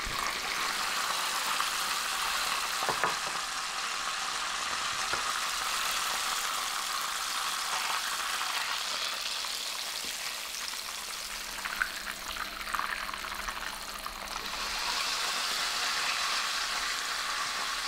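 Breaded escalopes frying in plenty of hot oil in a pan: a steady sizzle with a few crackles about two-thirds of the way through.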